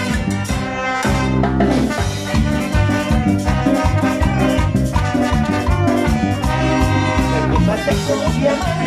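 Live brass band playing a Latin dance tune: trumpets, trombones and saxophone over keyboard, timbales and bass drum keeping a steady beat.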